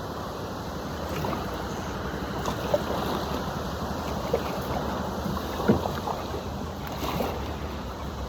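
Kayak paddling: water swishing and splashing around the paddle and hull, with a few short knocks spaced about a second and a half apart, over steady wind noise on the phone's microphone.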